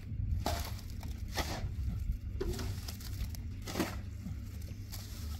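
Long-handled hoe scraping and chopping through a heap of sand-and-cement mortar mix on the ground: gritty strokes about once a second, over a steady low rumble.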